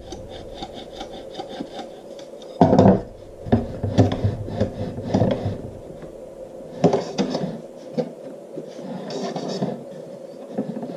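Aluminium 2020 extrusion rails and a printer bed plate handled on a wooden workbench: knocks as the assembly is set down and shifted, the loudest a little under three seconds in, with scraping and rubbing in between as the rails slide across the wood.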